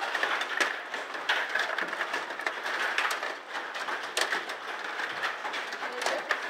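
Table hockey game in play: metal rods sliding and twisting in the table, plastic players clacking against the puck and the boards. Many irregular clicks and knocks over steady background noise.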